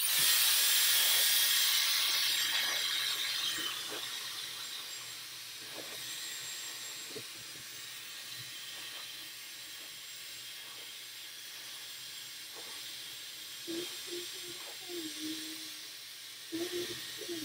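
Handheld hair dryer blowing on still-damp hair: a steady rushing hiss, loudest for the first few seconds, then quieter and even.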